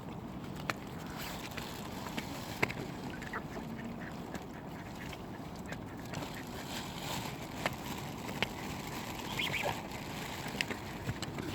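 Mallard ducks quacking on and off, short scattered calls and clicks over a steady background hiss.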